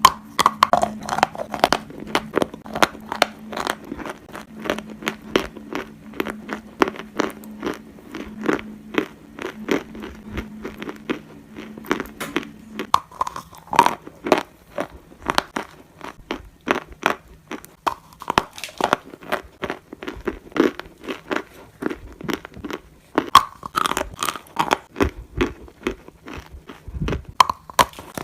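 Close-miked biting and chewing of dry edible clay (Turkestan clay) chunks: a dense run of sharp, brittle crunches, several a second, without a break.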